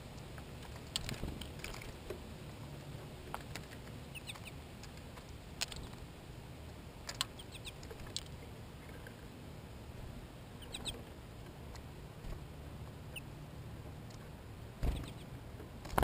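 Small birds, American goldfinches and a black-capped chickadee, pecking and cracking seed in a clear plastic window feeder: scattered sharp clicks and taps. Near the end comes a louder flutter and knock as a bird flies in and lands on the feeder.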